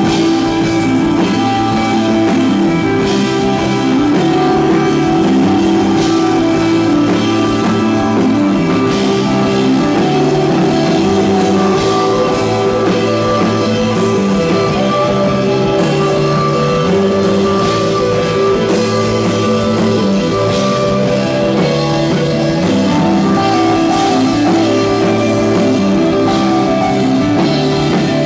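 Live psychedelic rock band playing an instrumental passage: sustained electric guitar lines over a bass line that steps through a repeating pattern, with a drum kit keeping time.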